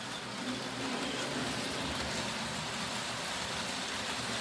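HO-scale PA2 model diesel locomotive with a flywheel motor running steadily on the layout's track, a continuous motor whir with wheel and rail noise.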